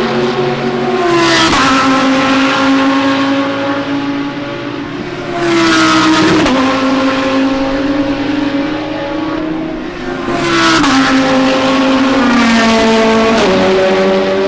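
Race cars at high revs passing one after another, three loud passes about four to five seconds apart, the engine notes stepping in pitch with gear changes.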